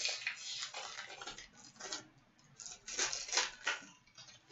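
A hockey card pack being handled and opened: the wrapper crinkles and the cards rustle and click together, in two spells of irregular rustling, the second, around three seconds in, the louder.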